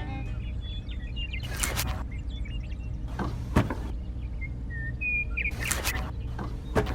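Small birds chirping over a steady low hum, broken by three short bursts of rushing, scraping noise and a couple of sharp knocks.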